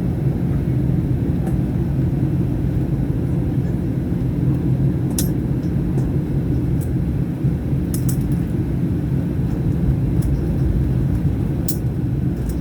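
Steady low rumble of jet engine and airflow noise inside a Boeing 737-800's cabin in flight, with a few brief sharp clicks.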